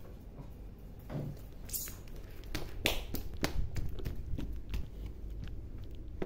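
Handling noise from a phone being moved around close to the floor: a low rumble with scattered light taps and clicks, a few sharper ones in the middle.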